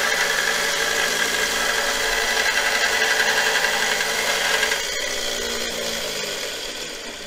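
Harbor Freight 1x30 belt grinder, converted to a variable-speed DC motor, running with a steel bowl gouge held against the belt to sharpen it: a steady grinding hiss over the motor's hum. About five seconds in, the grinding stops as the gouge comes off the belt. Near the end the motor winds down as it is switched off.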